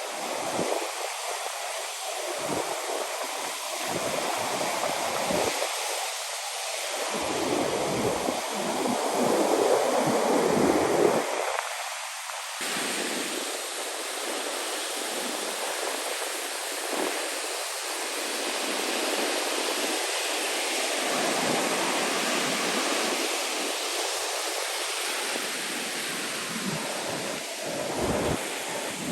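Ocean surf washing in a steady rushing noise, with wind on the microphone; the sound changes abruptly about twelve seconds in.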